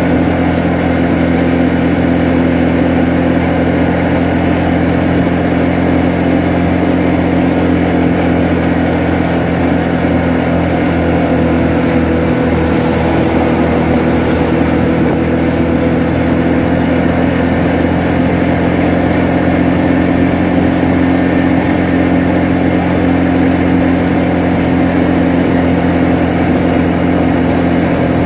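Motorbike engine running steadily at a constant cruising speed, heard from the rider's seat.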